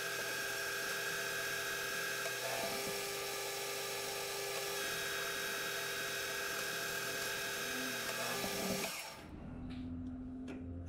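Metal lathe turning a steel pulley blank to diameter: the chuck spinning while the cutting tool takes a pass, a steady high hiss with a whine. The cut stops about nine seconds in, leaving a lower hum and a few light clicks.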